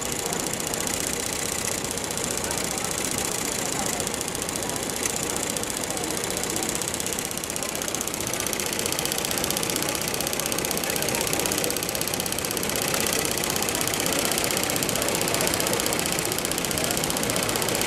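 Cornelli chain-stitch embroidery machine sewing, its needle mechanism running with a fast, steady clatter. It gets slightly louder about halfway through.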